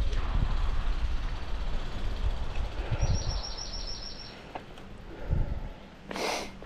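Low rumble of wind and bicycle tyres rolling on a concrete path, dying away. About three seconds in, a bird gives a quick run of about eight high chirps, and a short hiss comes near the end.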